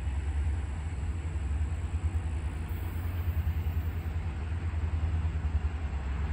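A steady low engine rumble, like a diesel running at idle out of sight.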